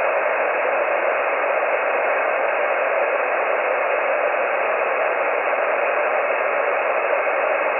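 Amateur radio transceiver tuned to the 20-meter band, giving a steady hiss of band noise and static through its speaker with no station transmitting on the frequency.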